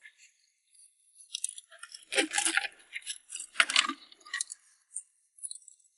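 Shells and sea urchins clinking and clattering as they are taken out of a bucket onto a boat deck, in several short rattles.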